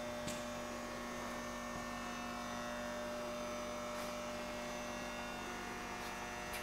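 Steady electrical hum made of several even tones, with a few faint clicks.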